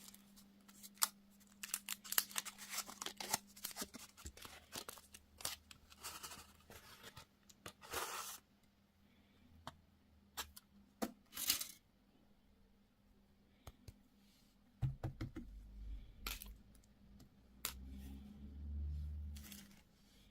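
Candy and toy packaging being torn open and handled: a run of quick clicks and crinkles, two longer tearing rips, then a few low thuds and a rumble of handling near the end.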